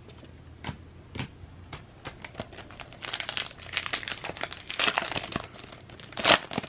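Wrapper of a Panini NBA Hoops trading-card pack crinkling as it is handled and torn open, with a few light clicks at first and dense crackling for the last few seconds, loudest near the end.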